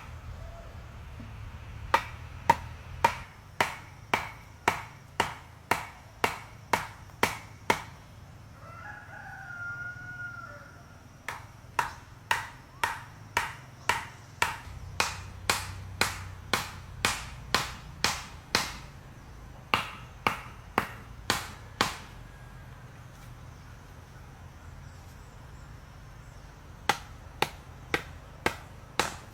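Runs of sharp, even strikes, about two a second, stopping twice for a few seconds, typical of hand chopping or hammering on wood. In the first pause, about nine seconds in, a rooster crows once.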